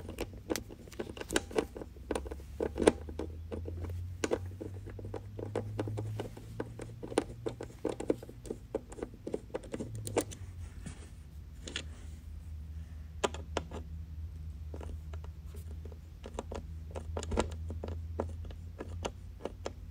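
Small screwdriver turning out the screws that hold a diecast model car to its plastic display base. It makes an irregular run of small clicks and scratches of metal on the screw heads and plastic, over a low steady hum.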